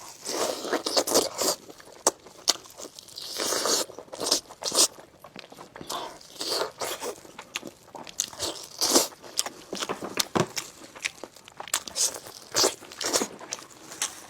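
Close-miked eating sounds: biting and chewing braised lamb chop meat off the bone, with irregular crunches and wet mouth clicks.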